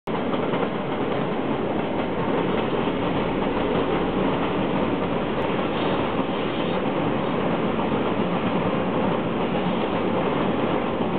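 Su46 diesel locomotive passing with a train of passenger coaches: a steady, even noise of the engine and of wheels on the rails.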